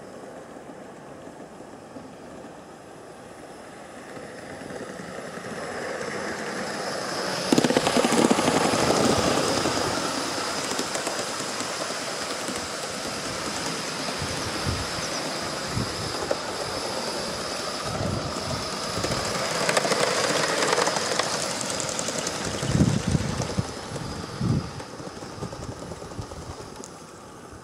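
Gauge 1 live-steam model train running past: wheels rolling over the track, with a steady high note for much of the pass and a few knocks in the second half. It builds up from about five seconds in, is loudest twice, and dies away near the end.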